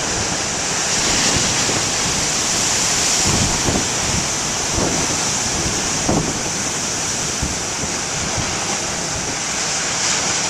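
Big ocean waves breaking and surf rushing steadily onto the shore, with wind buffeting the microphone in low gusts.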